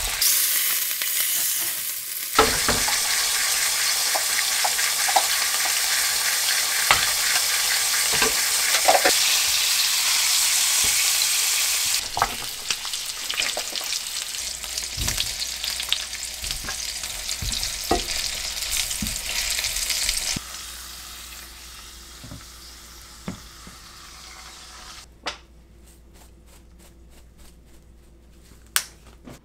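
Pork shoulder rack sizzling and spitting in hot oil in a frying pan, with sharp clicks of metal tongs against the pan as the meat is handled. About twenty seconds in the sizzle stops, leaving only a few faint taps near the end.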